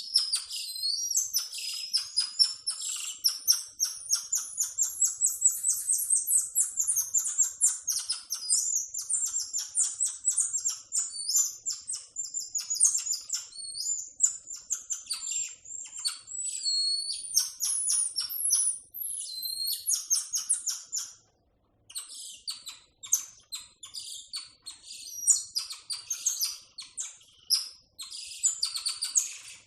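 Tamarin monkeys calling: a rapid, dense run of very high-pitched chirps and short whistles, breaking off briefly about two-thirds of the way through before starting again.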